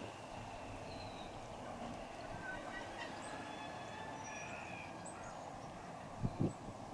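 Quiet station ambience: a steady low background with small birds chirping faintly now and then, and two short dull thumps close together near the end.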